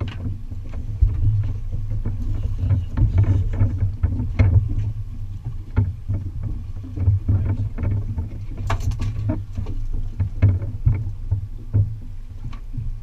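Fishing boat on choppy open water: a steady low rumble with frequent short knocks and splashes of water against the hull.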